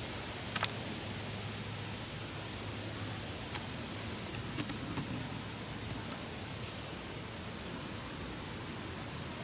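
Outdoor nature ambience: a steady, thin, high-pitched insect drone under a few short, high chirps. The two loudest chirps come about a second and a half in and near the end.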